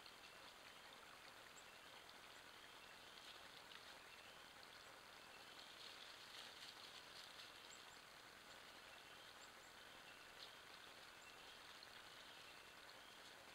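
Near silence: a faint steady hiss with soft, scattered crackles that grow a little busier about six to seven seconds in.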